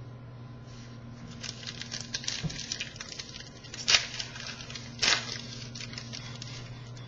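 Trading cards being handled and shuffled through: a run of light, quick papery ticks, then two sharper card snaps about a second apart.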